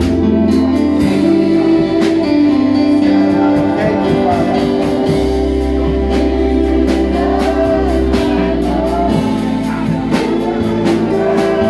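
Gospel music with singing over keyboard, bass and a steady beat, played in a church service.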